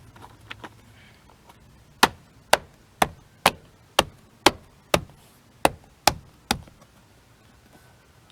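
A series of about ten sharp taps, roughly two a second, striking an interior trim panel to push its clips into their holes and seat it against the pillar.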